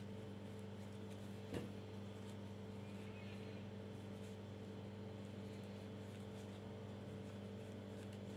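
A steady, faint low hum of a machine or electrical background noise, with one soft click about one and a half seconds in.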